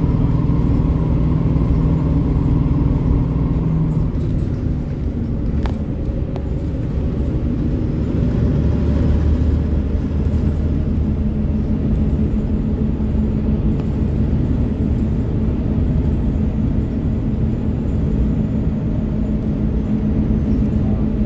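A small village bus under way, heard from inside the cabin: steady engine drone and road rumble. The engine note changes about five seconds in, with a single short click near then.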